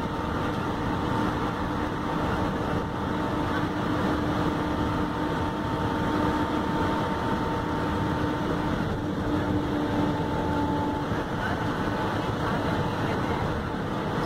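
Inside a city-to-city bus cruising on a highway: steady engine drone and road noise, with a faint steady whine over it that drops away about eleven seconds in.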